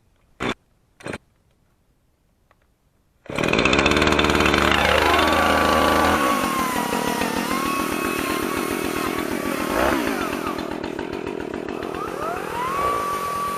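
Two sharp knocks in the first second and a half, then a chainsaw comes in abruptly and loud a few seconds in. It revs up, dips briefly, and climbs in pitch again near the end, as when cutting into a log.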